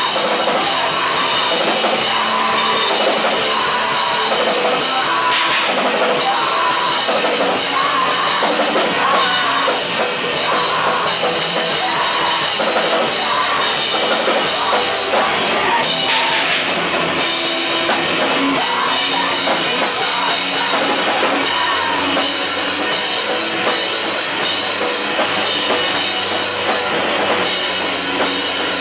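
Loud live rock band: a drum kit and several electric guitars playing together without a break.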